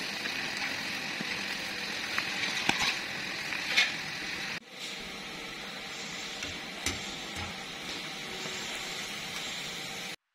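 Battered chicken strips deep-frying in hot oil: a steady bubbling sizzle, with a few sharp clicks.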